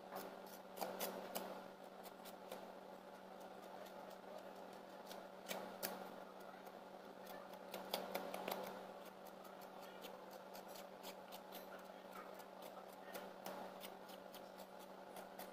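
Faint scraping and scattered sharp clicks of a small knife blade scratching along the edge of a gypsum wall panel, trimming it, over a steady low hum.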